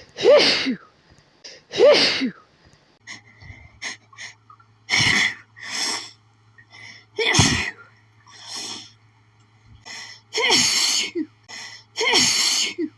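A woman's sneezing fit brought on by flowers: about six loud sneezes a second or few apart, several with a voiced falling 'choo', and softer breaths and sniffs between them.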